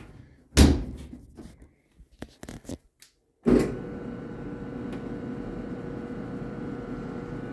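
A thump and a few clicks, then the clothes dryer's motor starts and runs with a steady hum and no tumbling or zipper clanging from the drum. The motor is spinning but the drum is not turning, a sign of a broken or slipped drive belt.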